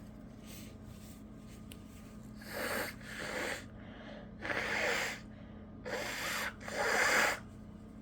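A person blowing their nose in about five short, forceful blasts over some five seconds, mostly in pairs, the last the loudest.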